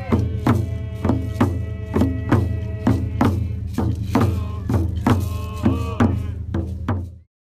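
Background music with a steady drum beat, about two beats a second, over a low sustained drone. It cuts off abruptly just before the end.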